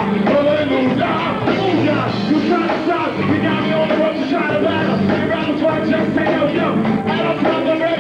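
A live rock band playing: electric guitar and full band with a singer on a microphone, loud and continuous.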